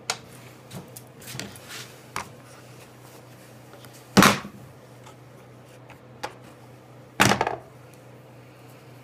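Bar clamp and steel sawblade knife blank being handled on a plywood workbench. Light clicks and rattles come in the first couple of seconds, then two sharp knocks about three seconds apart, over a faint steady hum.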